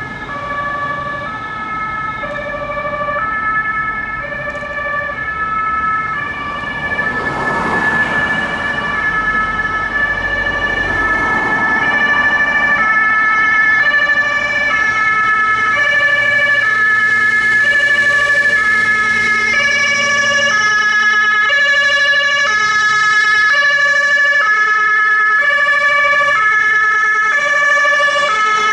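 Swedish ambulance two-tone siren alternating between a high and a low note about once a second, over a steady high tone, growing louder as the ambulance approaches. Passing traffic rushes by around the eighth to twelfth second.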